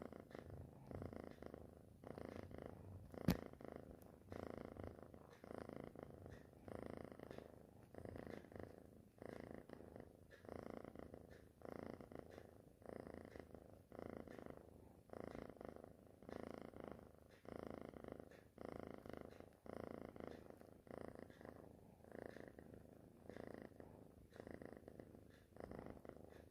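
Kitten snoring: a faint rumble that swells and fades with each breath, about one breath a second. A single sharp click about three seconds in.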